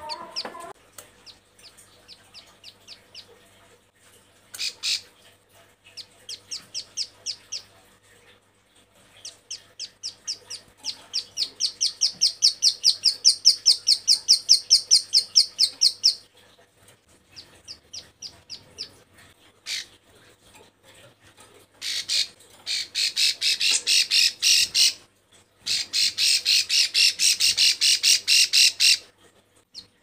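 Female ciblek sawah (prinia) calling: runs of short, high clicking notes, about five a second in a long series around the middle, then two faster, louder runs near the end. It is the call of a female in breeding condition, used as a lure to draw males.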